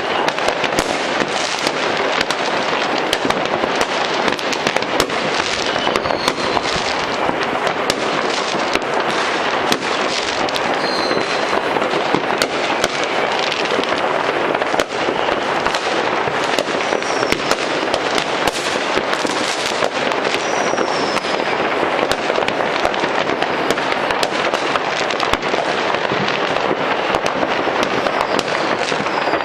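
Fireworks and firecrackers going off all over a city at once: a dense, unbroken crackle of many overlapping bangs, with a few short whistles now and then.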